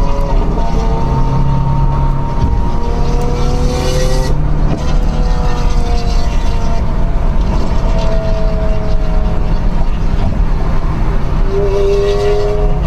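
Cars driving fast on a highway, heard from inside a following car's cabin: engine notes gliding up and down in pitch over a steady road rumble.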